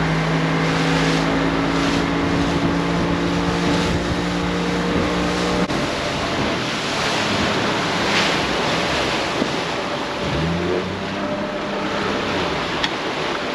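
Outboard motor running at speed, driving a small open fishing boat, with the rush of wake water and wind on the microphone. The engine's steady hum shifts about six seconds in, and a short rising note comes around ten seconds in.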